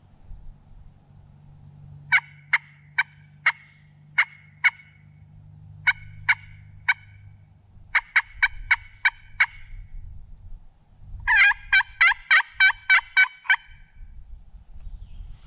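Hen turkey yelps worked on a pot-style friction call with a wooden striker: four runs of short, sharp yelps, the first slow at about two a second, the later runs faster, and the last run, about two-thirds of the way in, the loudest.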